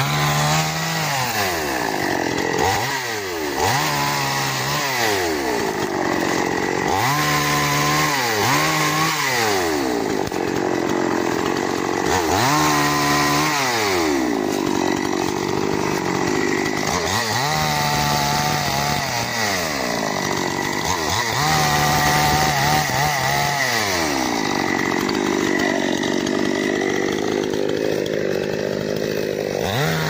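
Small chainsaw revving up and dropping back repeatedly, about every four to five seconds, as it cuts through branches.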